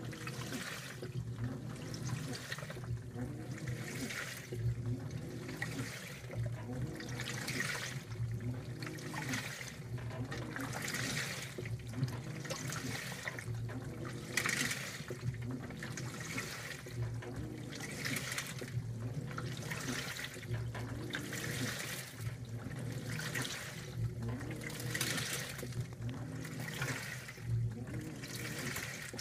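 2012 LG top-load washer agitating a heavy-soil Normal wash cycle. Water and clothes slosh in regular surges, a little more than one a second, as the wash plate drives the load, over a steady low hum.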